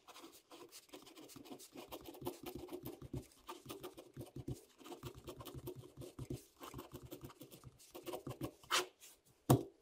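Ballpoint pen writing capital letters on graph paper, a faint run of quick short scratching strokes. Near the end come two louder knocks, about a second apart.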